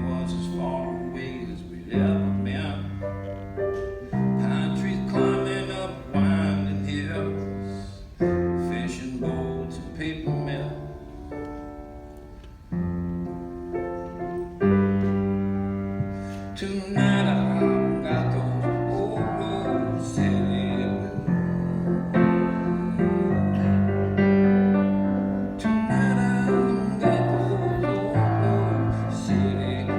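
Piano playing a slow instrumental passage: chords struck about every two seconds and left to ring and fade, the playing growing busier about halfway through.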